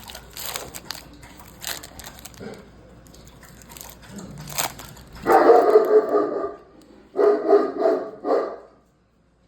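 Dog barking hard in two runs of rapid barks starting about five seconds in, an alarm at someone at the front door. Before that, only light clicks and rustling.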